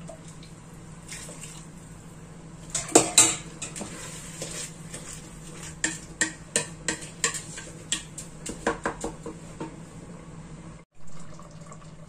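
A metal ladle clanks against a stainless steel stockpot, with two loud knocks about three seconds in. Then a wooden spoon stirs rice in a steel pot, tapping against it in a run of light knocks. The sound cuts out briefly near the end.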